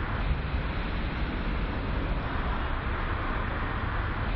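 Steady street traffic noise: a low rumble and hiss with no distinct events standing out.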